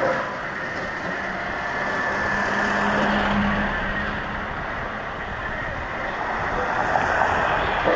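A motor vehicle passing close by, its engine hum swelling and then fading over a steady rushing noise.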